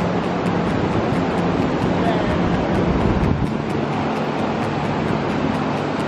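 Ocean surf breaking on the beach, a steady wash of noise, with wind rumbling on the microphone.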